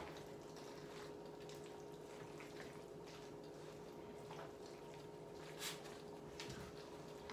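Faint wet squishing and scraping of a wooden spoon stirring a thick, cheesy tuna-noodle mixture in a frying pan, with scattered soft clicks of the spoon against the pan. A faint steady hum runs underneath.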